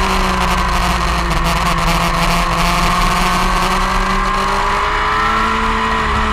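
Motorcycle engine running at track speed, heard from an onboard camera over wind rush. Its pitch eases down and then rises again about five seconds in as the bike is ridden through the corners.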